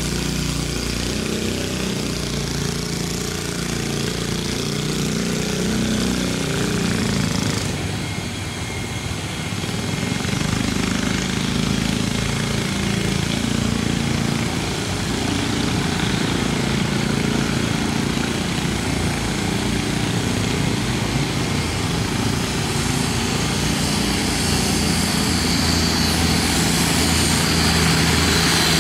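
A river barge's engine running steadily, a low drone under a wide hiss, growing a little louder toward the end.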